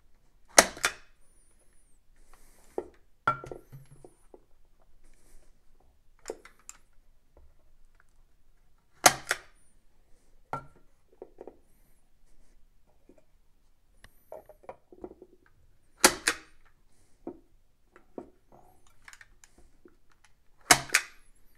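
Fletcher point driver firing framing points into the back of a wooden picture frame: four sharp, loud snaps several seconds apart, with quieter clicks and knocks between.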